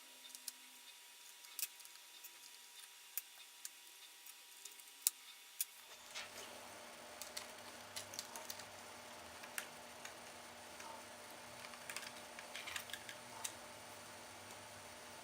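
Faint, scattered light clicks and taps of small parts and tools being handled while taking apart a laptop. The background hiss and hum get louder about six seconds in.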